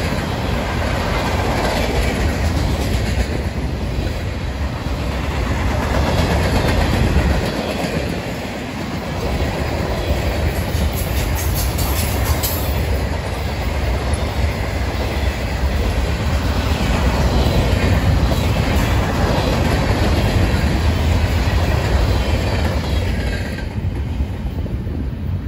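Freight cars of a manifest train (gondolas and covered hoppers) rolling steadily past, steel wheels running on the rails. Near the end the last car clears and the sound drops away.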